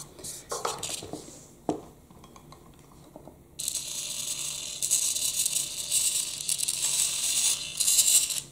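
A few plastic clicks and knocks as the toy chassis is handled, then the small electric drive motor and its plastic gearbox run for about five seconds, starting abruptly about three and a half seconds in and cutting off just before the end.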